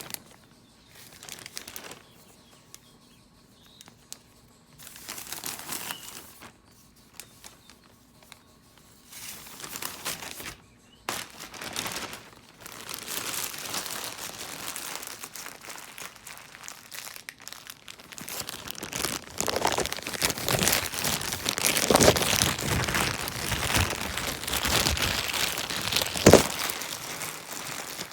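Crinkling and rustling of a green screen kit's packaging being handled: scattered short rustles at first, then near-continuous crinkling from about eleven seconds in, loudest in the last third, with one sharp knock near the end.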